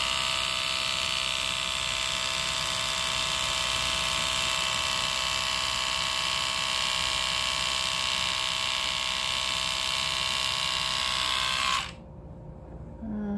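Split-Ender Pro 2 split-end trimmer running steadily as it is drawn along a section of hair, a small electric motor with a steady whine. It switches off abruptly about a second before the end.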